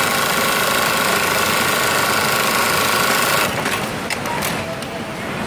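Industrial programmable pattern sewing machine running at speed, stitching a patch label held in its clamp frame: a dense, steady whirr with a high whine. It stops about three and a half seconds in, followed by a few light clicks.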